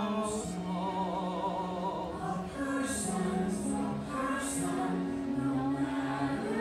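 A stage musical number: a group of voices singing long held notes to music.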